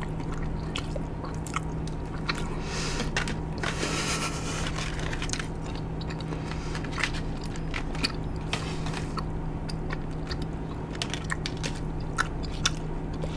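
Close-miked mouth sounds of a fresh wad of Big League Chew shredded bubble gum being chewed: irregular wet clicks and smacks. A brief hiss comes about four seconds in.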